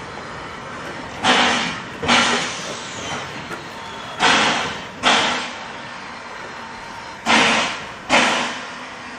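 Narrow-gauge passenger carriages rolling slowly past, their wheels clacking over a rail joint: pairs of sharp clacks a little under a second apart, a new pair about every three seconds as each carriage goes by.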